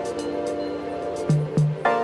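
Background music: sustained chords with two short low notes about a second in, and a change of chord near the end.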